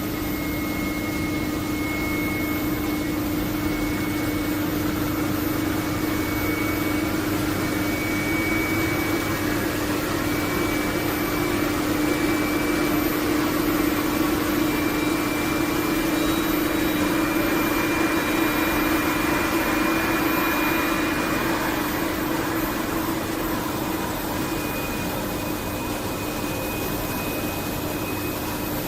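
A motor-driven machine running steadily: a continuous whirring hum with a faint high whine that creeps slowly upward in pitch.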